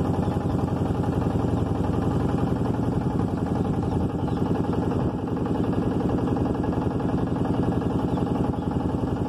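Motorboat engine running steadily, with an even rapid pulsing, heard from on board the boat.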